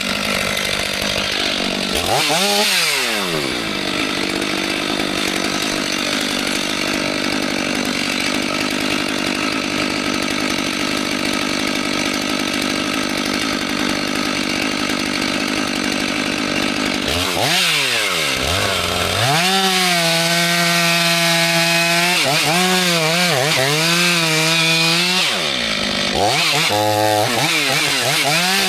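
Chainsaw engine running at high revs while cutting wood. Its pitch dips and climbs back up about two seconds in, again near seventeen seconds and near twenty-six seconds, and wavers up and down in between as the saw loads and frees in the cut.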